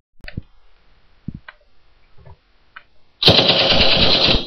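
Automatic rifle fire sound effect, a loud rapid burst that starts suddenly about three seconds in. Before it there are only a few faint clicks and knocks.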